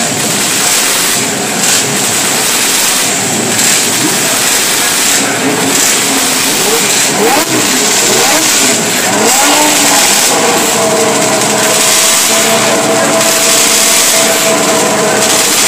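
A grid of classic 500cc racing motorcycles, many of them two-strokes, running together on the start line with their engines revved up and down, then held at a steady higher pitch for the last few seconds as the start nears.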